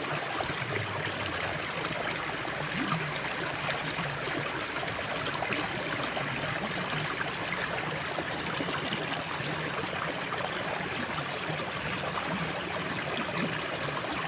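Water running steadily in a small ditch, an even rushing trickle.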